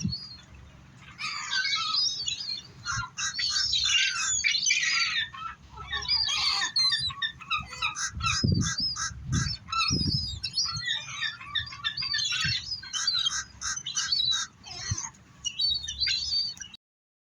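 A flock of birds calling constantly at close range, with many high calls overlapping. A few low thumps come about halfway through. The sound cuts off abruptly near the end.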